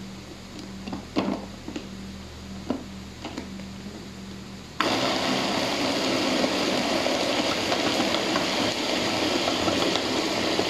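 A few plastic clicks as the bowl and lid of an electric food chopper are fitted, then about five seconds in its motor switches on and runs steadily, blending tomatoes, chilies, garlic and coriander into a hot sauce.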